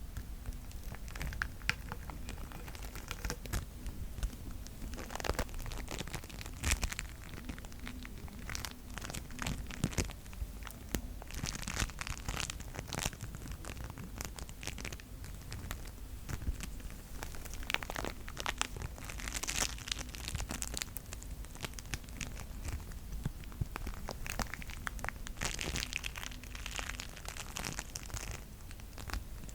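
Bead-filled slime being squeezed and kneaded, giving irregular crackling, popping and squishing, with denser bursts of crackle every few seconds.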